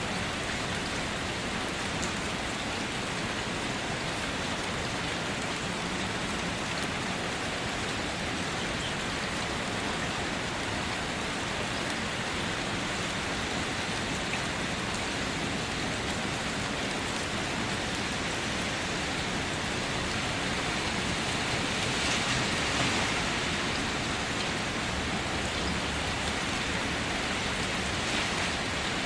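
Steady rain falling, a dense even hiss of many drops on a surface, swelling a little about two-thirds of the way through.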